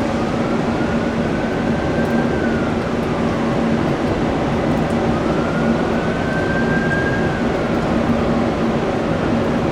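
Steady jet engine noise at an airport with a low hum, overlaid by a siren wailing slowly: it rises, holds and falls about every four to five seconds.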